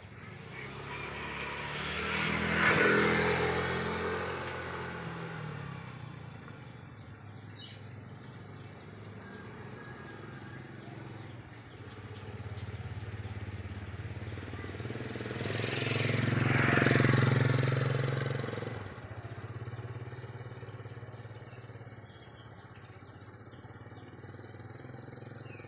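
Two motor vehicles passing by one after the other, each engine growing louder, peaking and fading away over several seconds, the second about fourteen seconds after the first. A fainter engine hum carries on between and after them.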